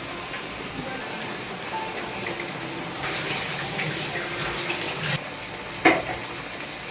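Kitchen noise: a steady hiss with small crackles that stops abruptly about five seconds in, followed by one sharp knock.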